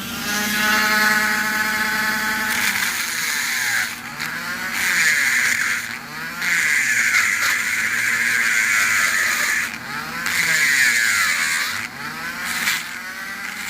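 A small high-speed power tool cutting into a padlock's lock core: a high motor whine, then about five grinding passes with short breaks between them, the pitch sagging and recovering as the cutter bites into the metal.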